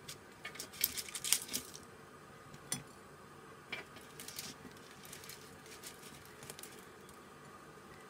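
Metal tongs tapping and clicking against a ceramic plate as sesame bagels are set down on it: a scatter of light clicks, thickest about a second in, then a few single taps.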